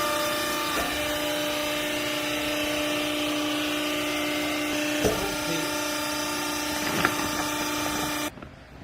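A vertical clothing baler's hydraulic power unit running with a steady, pitched motor hum and a few sharp knocks, then cutting off abruptly near the end.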